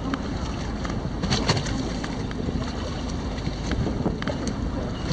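Steady rush of wind and sea water alongside a small fishing boat, with a few short, sharp sounds clustered about a second and a half in as a hooked fish is drawn up against the hull.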